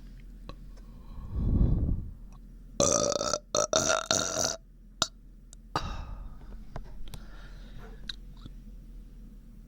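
A person burping from a bloated, aching stomach. A deep low burp comes about a second and a half in, then a long pitched belch broken into several pulses from about three to four and a half seconds, and a weaker burp near six seconds.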